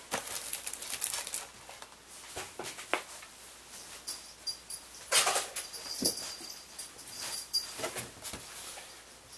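Packaged merchandise being handled and set down on a table, and a cardboard box lid being lifted: scattered light knocks and plastic-wrap rustles. A faint high whine sounds for a few seconds midway.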